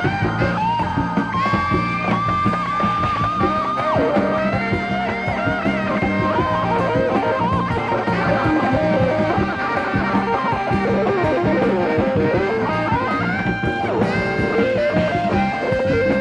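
Live Latin-rock instrumental: electric guitar and tenor saxophone playing a slow lead melody of long, bending held notes over a full band.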